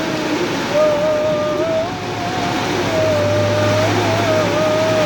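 Heavy rain pouring in a steady rushing hiss. A wavering tone runs through it, and a low hum comes in about three seconds in.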